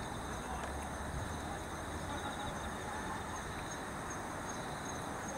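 Insects singing: a steady high trill, with a pulsing phrase about halfway through, over a low background rumble.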